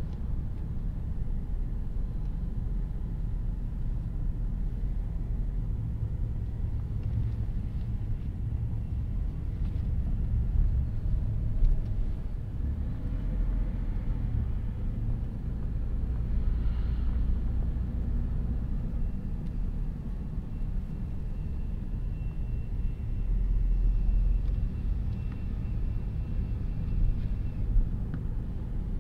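Car driving on suburban streets: a steady low rumble of engine and tyre road noise, with a couple of brief louder moments.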